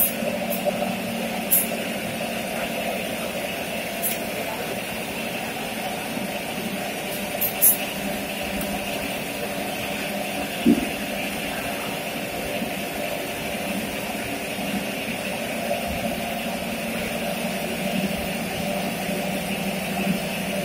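Automatic two-head servo liquid filling machine running with a steady mechanical hum, broken by a few sharp clicks.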